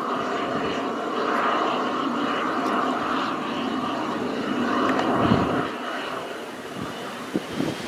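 Airbus H225 helicopter's twin turbine engines and rotors running on the ground: a steady rushing rotor noise with a thin high turbine whine above it. The sound drops slightly about six seconds in, and a few low gusts of wind hit the microphone near the end.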